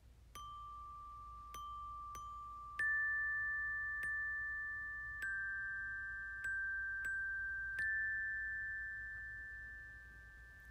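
Tuned metal chimes struck slowly about nine times on a few high notes. Each note rings on and overlaps the next, and the ringing dies away near the end.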